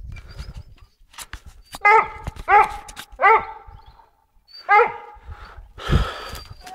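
Dog barking four times, each bark rising then falling in pitch, with a brief thump near the end.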